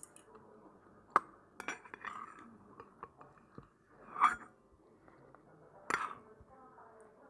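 Wooden chopsticks clinking against a stainless steel bowl a few times, the loudest clink about four seconds in.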